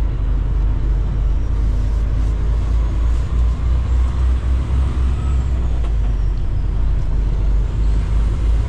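Semi tractor-trailer's diesel engine running steadily at low speed as the truck creeps along, a continuous deep low drone.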